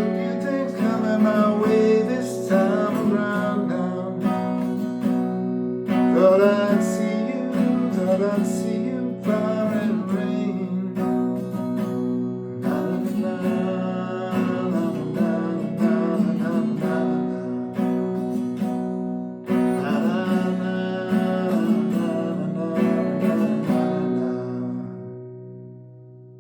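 Acoustic guitar playing plucked and strummed chords, steady until near the end, where a last chord is left to ring and fade out.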